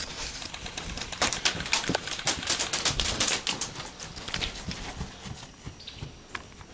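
Airsoft guns firing a rapid string of shots, sharp irregular snapping clicks that thin out over the last couple of seconds.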